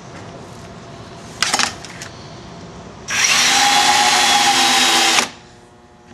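Power drill boring a hole in a clear plastic sheet: a short click, then the drill runs steadily for about two seconds and stops.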